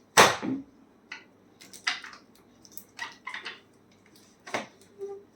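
Irregular clatter and rustling handling noise: about half a dozen short knocks and scrapes, the loudest just after the start.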